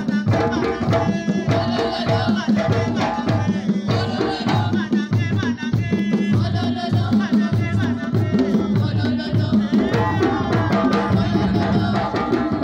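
Live upright drums beating a steady dance rhythm, about two strong beats a second, with voices singing over them.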